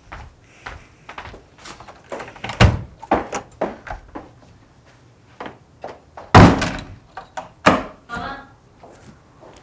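Footsteps on a tiled floor and an apartment front door being worked: a loud knock of the latch as it is opened a few seconds in, the door slammed shut about six seconds in, then a further knock and a short rattle as the lock is handled.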